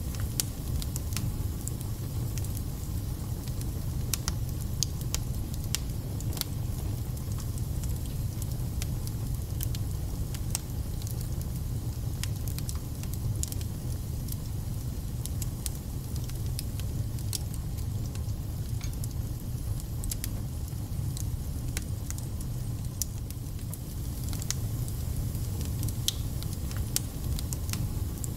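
Wood fire burning in a fireplace: a steady low rumble with frequent small crackles and spits.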